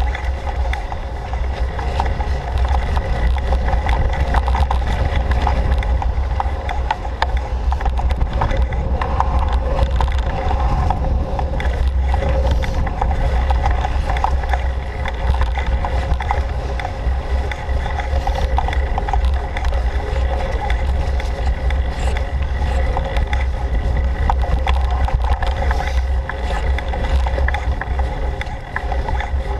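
Mountain bike ridden fast along a forest trail: steady low wind rumble on the microphone, with tyre noise and small rattles and ticks from the bike over the rough ground.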